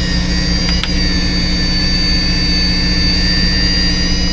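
Fishing boat's engine running steadily: a low hum with a thin, steady high whine over it. Two short clicks come just under a second in.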